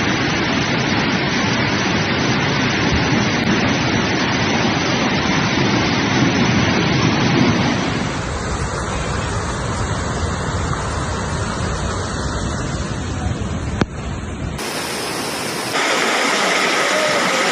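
Loud, steady rush of a river in flood, an even roar of fast-moving water. The noise changes abruptly about eight seconds in and again near the end, where the deep part of the roar drops away and a faint steady whine appears.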